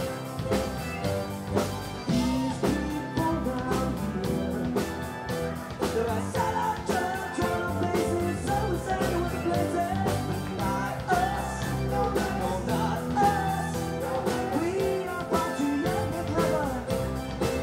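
A live rock band playing, with electric guitars, bass and drums keeping a steady beat, and a singer's voice over them.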